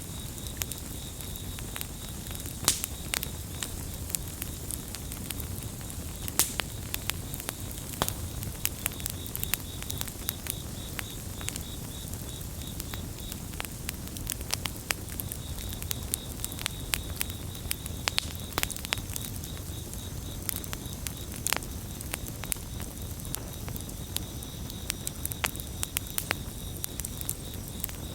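Campfire burning, with frequent irregular sharp crackles and pops over a low steady rumble. Crickets chirp in fast pulsing trains behind it, pausing briefly around the middle.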